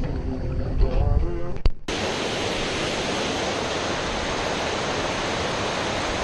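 Background music with a low rumble, cut off abruptly a little under two seconds in, then the steady rushing of a creek waterfall.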